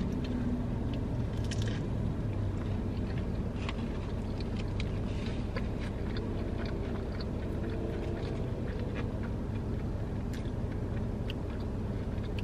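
A person biting and chewing a fried chicken sandwich close to the microphone, with small irregular crunches and mouth clicks over a steady low hum.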